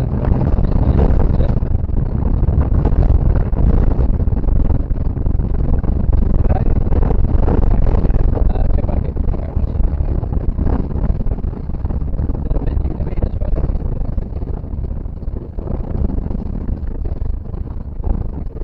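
Rally car driven hard on a gravel track, heard from inside the cabin: the engine runs under load while loose gravel clatters and the car jolts over bumps, loud and distorted. It eases off somewhat about halfway through.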